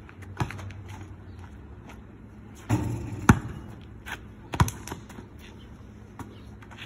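Basketball bouncing on asphalt: a few separate sharp bounces, the loudest about three seconds in.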